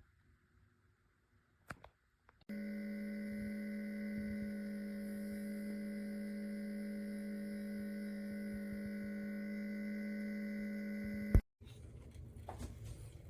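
A steady electrical hum, one constant pitch with many overtones, that starts abruptly about two and a half seconds in and cuts off with a sharp click near the end.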